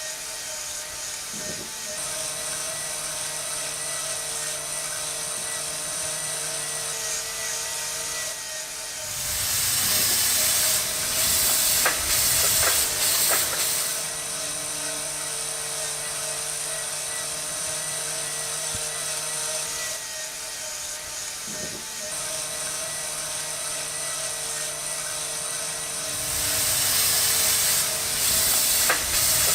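Small electric motors of a DIY miniature locomotive and crane machine whirring steadily with a thin whine. About a third of the way in, and again near the end, a louder hiss joins in as white granules pour from the hopper into the tipper carts.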